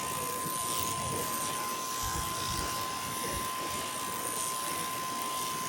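Electric sheep-shearing handpiece running with a steady high whine as it cuts through the fleece.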